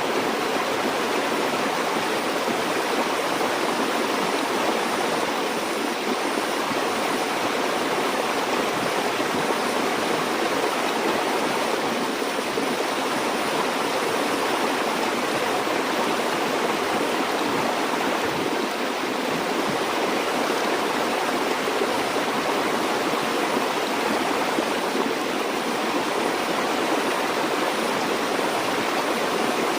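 A stream flowing steadily over rocks: a constant, even rush of running water with no changes.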